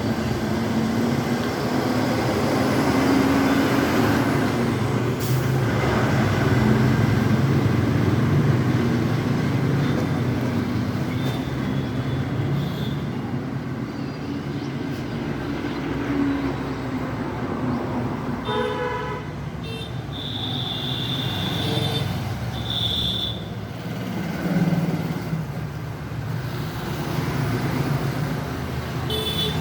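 Steady road traffic noise, with a few short horn toots in the second half.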